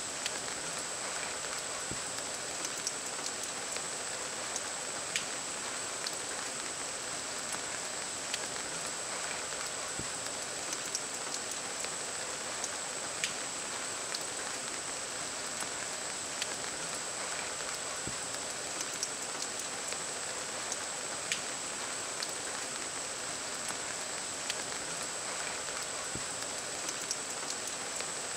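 Steady outdoor ambience: an even, rain-like hiss with scattered faint ticks, and a constant high-pitched whine.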